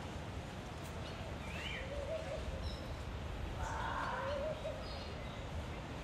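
Assorted birds calling: short chirps and whistles at several different pitches, with a harsher call about four seconds in, over a steady low background noise.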